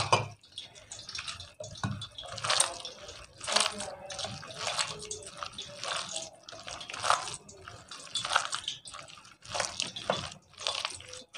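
A hand mixing and squeezing a wet batter of shredded potato and gram flour in a glass bowl: irregular wet squelches, roughly one a second.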